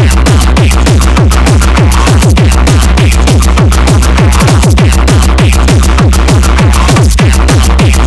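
Techno from a live DJ set playing loud: a steady kick-drum beat with heavy bass, overlaid with quick, repeated falling synth sweeps.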